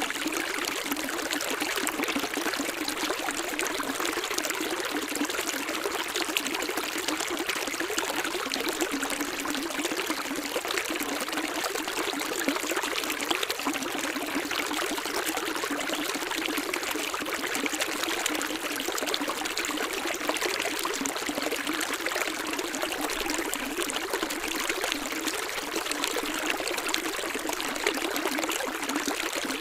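Running water flowing steadily, an even rush with little low rumble and no change in level.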